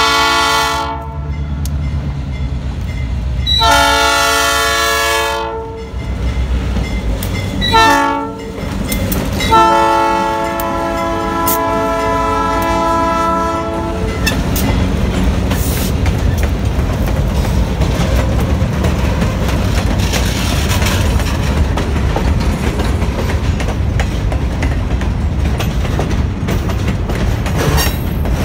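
Ashland Railway diesel locomotive blowing its multi-chime air horn in the long, long, short, long grade-crossing pattern, the last blast held longest, over the low rumble of its engine. After the horn, freight cars roll past with a steady rumble and rhythmic clickety-clack of wheels on rail joints.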